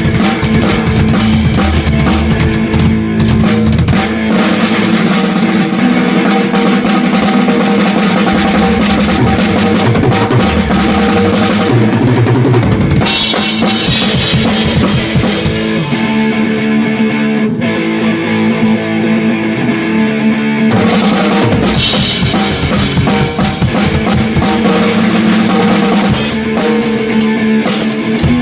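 Rock music with a full drum kit to the fore: bass drum, snare and cymbals over a sustained band backing.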